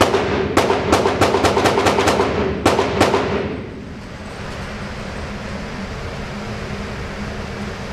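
A rapid string of about a dozen gunshots on an indoor range, each echoing off the walls, stopping about three seconds in.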